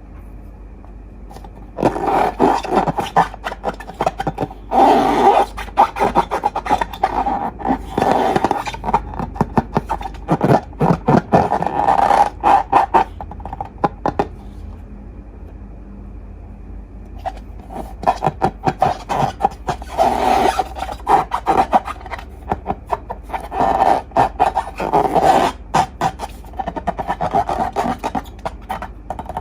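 Slime being squeezed and worked by hand, giving dense crackling clicks and squelches in two long spells with a short pause between them.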